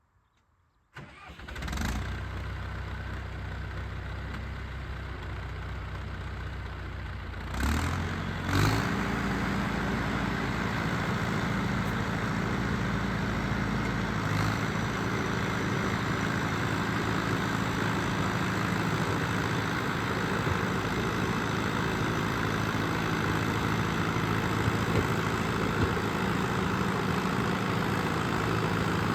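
John Deere 450C bulldozer's diesel engine starting about a second in and settling into a steady run. About eight seconds in it surges twice and picks up speed, then runs steadily at the higher speed.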